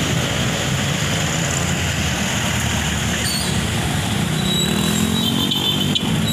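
Road traffic at an intersection: jeepney, car and motorcycle engines running as vehicles cross, with one engine rising in pitch as it pulls away about four seconds in.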